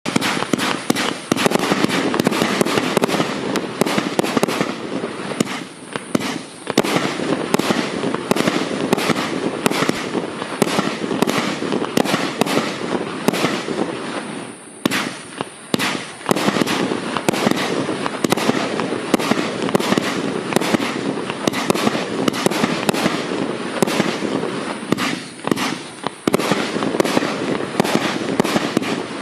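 Furor 'Extra Warm' FC30120-2 firework cake, 120 shots of 30 mm calibre, firing: shots and bursts in quick succession, two or three a second, with crackling between them and a brief lull about halfway.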